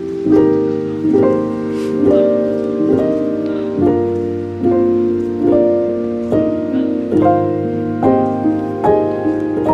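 Background piano music: a gentle, steady run of notes struck at an even pace, a little more than one a second.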